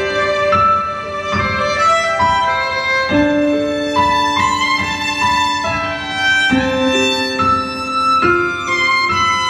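Violin playing a slow melody of long held notes, with a falling slide in pitch about six seconds in, over a piano accompaniment of steady chords. This is an acoustic instrumental arrangement of a pop-violin song.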